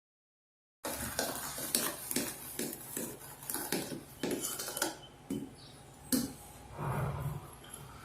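A mixing utensil knocking and scraping against a bowl as dry ingredients are stirred into cake batter. The knocks start abruptly about a second in, come two or three a second for about four seconds, then thin out.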